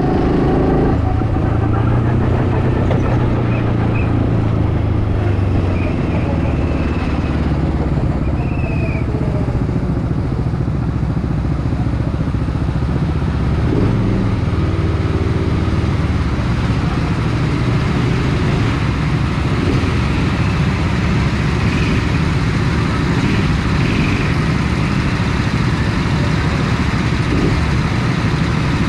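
Go-kart's small engine running steadily, heard close up from the driver's seat.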